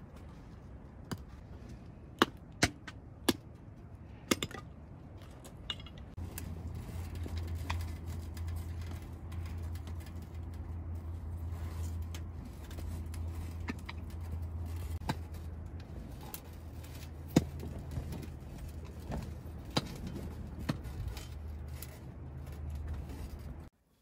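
Several sharp knocks in the first few seconds, then a steady low rumble with scattered pops and crackles from wood burning in a camping wood stove.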